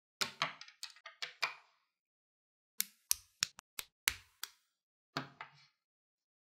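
Small plastic building bricks clicking and clacking as pieces of a brick-built dinosaur skeleton are snapped together and handled. The clicks come in three quick clusters, with silence between them.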